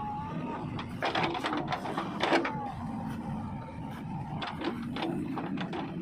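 JCB 3DX backhoe loader's diesel engine running steadily while the backhoe arm and bucket work the soil, with sharp metallic knocks and clanks over it: a cluster about a second in, the loudest about two and a half seconds in, and more from about four and a half seconds in.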